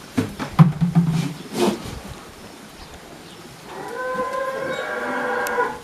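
A goat bleating: one long call of about two seconds starting a little past halfway. Before it, a short low-pitched sound and a few sharp knocks.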